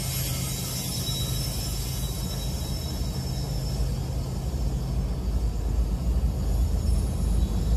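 CSX GE ES44AH diesel locomotive, a distributed-power unit, rolling slowly past, its diesel engine running with a steady low drone.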